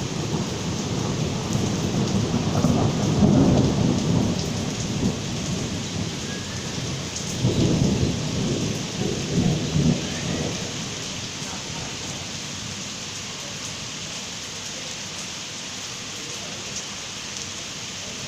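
Spring rain falling steadily with two low rolls of thunder, the first about two seconds in and the second about seven seconds in, dying away by the last third.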